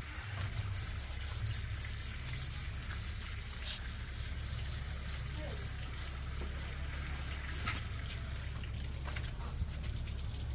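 Fetal heartbeat heard through an ultrasound Doppler speaker: a fast, rhythmic, scratchy whooshing pulse.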